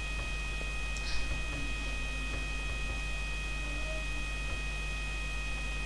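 Steady electrical mains hum with several faint constant high-pitched whine tones, the noise floor of the recording, with a faint click about a second in.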